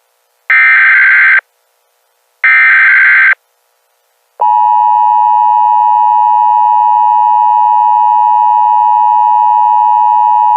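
Emergency Alert System tones: the last two of the three SAME header data bursts, each under a second long and about a second apart. After a short gap, the steady two-tone EAS attention signal starts about four and a half seconds in.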